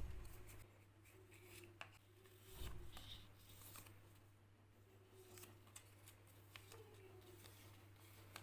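Faint handling noises: scattered light clicks and rustles, with a soft thump at the very start and another about two and a half seconds in, over a low steady hum.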